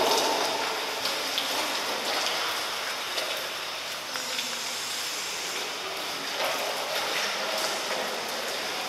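Steady wash of water noise from an indoor swimming pool, the rippling surface lapping and splashing.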